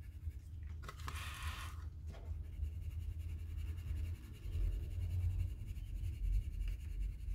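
Soft-core Castle Art colored pencil scribbling back and forth on paper to fill a swatch square: a faint, fine scratching, over a low rumble.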